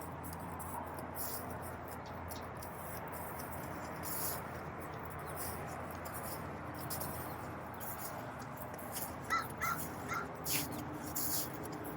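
Backyard chickens clucking softly, with three short, quick calls in a row about nine to ten seconds in, over a steady background hiss.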